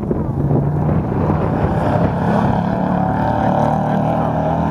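Autocross race vehicle's engine running hard, its pitch climbing somewhat in the second half.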